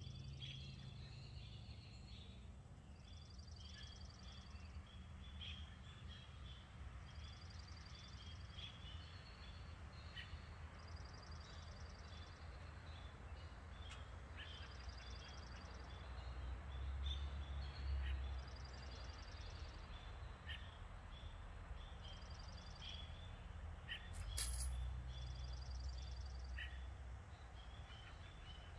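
Songbirds singing: one bird repeats a short high trill about every two seconds among other birds' chirps, over a faint steady low rumble. A single sharp click sounds near the end.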